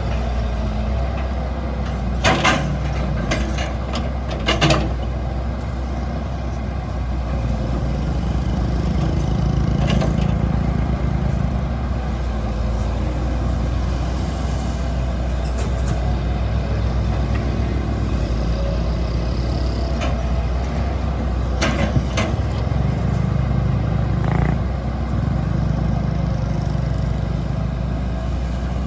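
Hydraulic excavator's diesel engine running steadily and swelling twice as it takes load. A few sharp metallic clanks come from the machine working through the debris.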